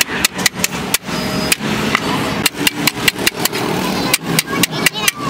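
Hand hammer striking a piece of sheet metal held on a block, a quick run of sharp metallic blows about five a second, thinning out for about a second and a half after the first second, as the panel piece is hammered into shape.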